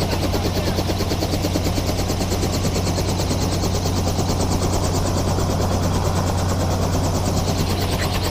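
Helicopter running steadily, a constant low engine hum with a fast, even chop from the rotor blades.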